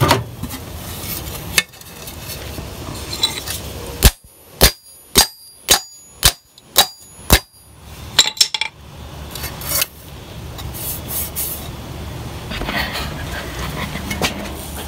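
About seven sharp, ringing hammer blows on steel, roughly two a second, knocking a dent out of a thin sheet-steel VW bus gas filler door laid on a railroad-rail anvil; a few lighter taps follow.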